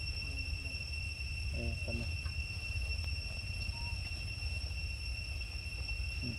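Outdoor ambience: a steady low rumble and a steady high-pitched insect drone, with faint brief snatches of a voice about half a second and two seconds in.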